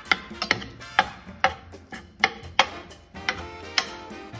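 A fork chopping and breaking up raw ground turkey in a nonstick skillet, the utensil clicking and tapping against the pan about three times a second, unevenly.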